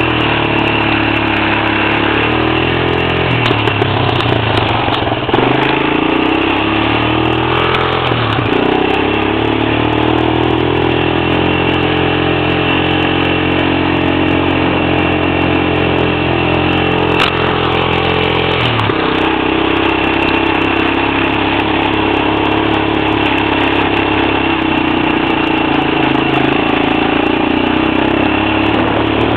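Honda Recon 250 ATV's single-cylinder four-stroke engine running under way. Its note drops and picks back up a few times in the first twenty seconds, then holds steady.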